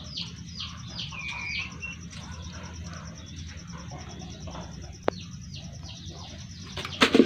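Chicks peeping: repeated high, downward-sliding peeps in two runs, with a sharp click about five seconds in and a brief loud rustling burst near the end.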